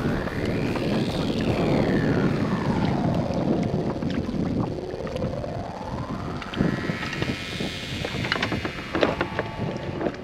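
Wind buffeting the microphone and water noise on a kayak at sea. A hollow whoosh rises in pitch, falls, then rises again, and a few sharp clicks come near the end.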